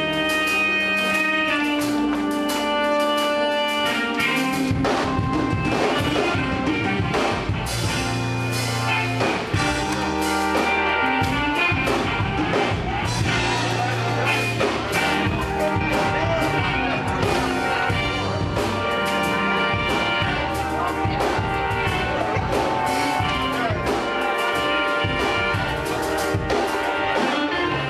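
Live gospel band playing. Held chords open, then a drum kit comes in about four seconds in, with low bass notes and a saxophone.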